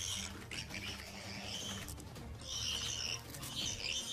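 Shrill, repeated squealing from an animal in a fight, in short high cries that grow stronger in the second half, over a steady background music drone.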